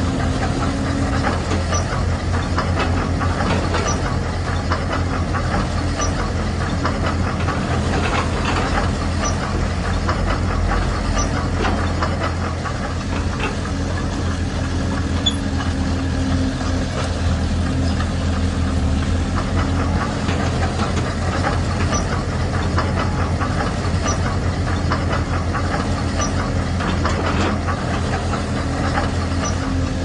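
Heavy diesel-engine running sound of radio-controlled construction models, steady with a fast, even knocking beat.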